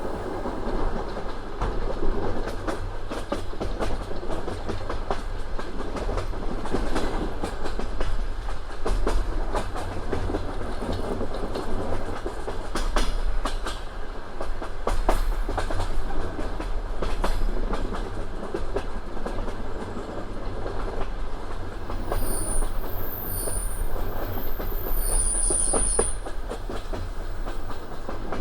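Passenger train's wheels clattering over rail joints above a steady running rumble, with a few brief high-pitched squeals a little over three-quarters of the way through.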